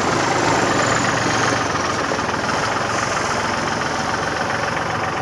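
An engine running steadily at idle under a steady rushing noise.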